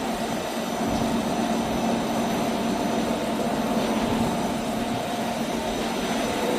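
Heavy machinery running steadily: an even engine drone with a constant hum, no drilling strokes.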